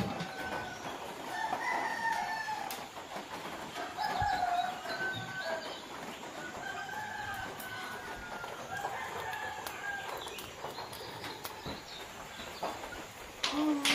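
Domestic chickens clucking and calling: several short calls spread through, with a few faint clicks.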